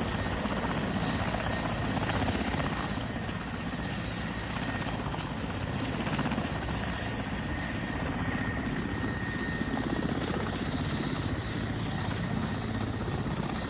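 Large Mi-17-type military transport helicopter running on a helipad with its rotors turning: a steady, loud rotor and engine noise with a thin high whine held over it.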